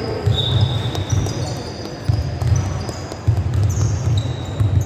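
Basketball being played on a wooden sports-hall court: the ball is dribbled and players' trainers thud and squeak on the floor as they run. Short high squeaks come and go throughout.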